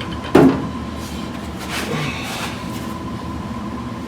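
A sharp metal clunk about a third of a second in, then softer scraping and knocking as a steel frame rail is shifted into place on a jack.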